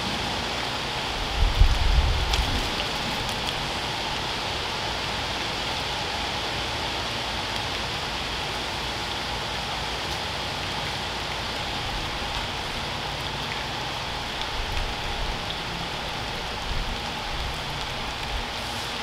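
Steady rain falling on a wet paved driveway and lawn, an even hiss, with a brief low rumble about two seconds in.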